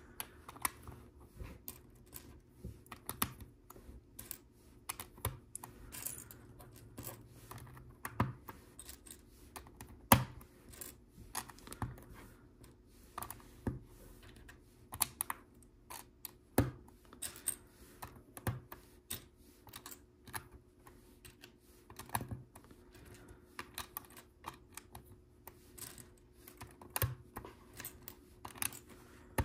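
Small plastic LEGO pieces being picked up and pressed onto a build: irregular light clicks and clatter. The sharpest click comes about ten seconds in.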